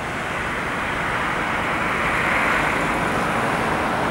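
Road traffic noise: the tyre hiss of a passing car swelling to its loudest about halfway through.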